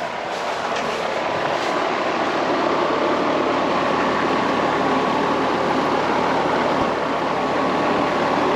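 Steady whooshing machine noise with a low hum, growing louder over the first few seconds and then holding steady.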